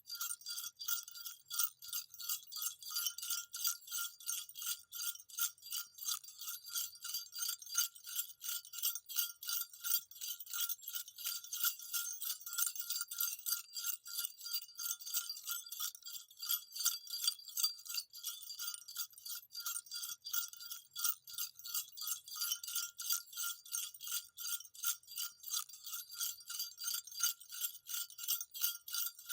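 Small jingle bells shaken without pause in a dense, rapid, steady jingle.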